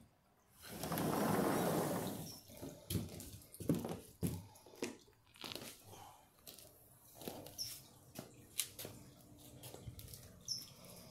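A sliding glass door rolling open in a rush of noise lasting about two seconds, followed by scattered footsteps and small knocks as someone steps through onto concrete. A few short high chirps come through about two, seven and a half and ten seconds in.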